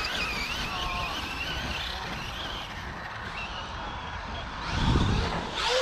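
Large brushless electric RC cars running, their motors whining and rising and falling in pitch as they are throttled, with a louder rush about five seconds in.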